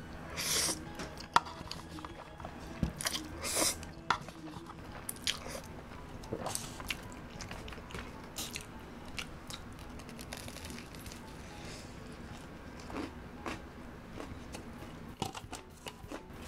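Close-miked eating: a long slurp of jjajang noodles about half a second in, then wet chewing with scattered clicks and crunchy bites of crisp shrimp toast (menbosha).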